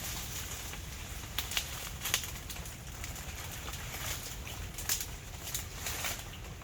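Rain pattering with scattered sharper taps and rustles, over a low steady rumble of wind on the microphone.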